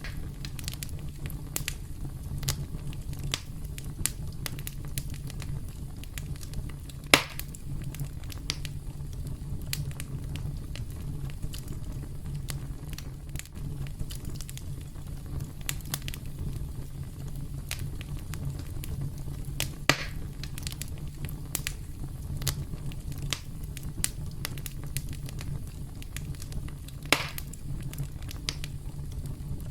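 Campfire crackling: a steady low rumble of burning with scattered sharp pops and snaps, three louder pops among them.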